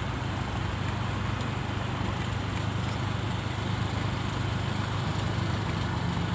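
Steady vehicle engine hum and road noise from a moving vehicle, even in level throughout.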